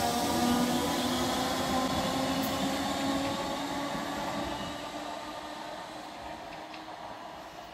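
Merseyrail Class 507 electric multiple unit pulling away and receding: a whine of several steady tones fades out within about three seconds, and the rolling rumble dies away steadily after it.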